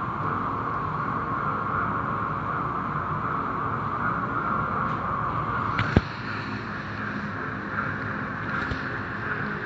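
Automatic tunnel car wash heard from inside the car: a steady hiss of water spray and cloth brushes washing over the body and glass, with a single sharp knock about six seconds in.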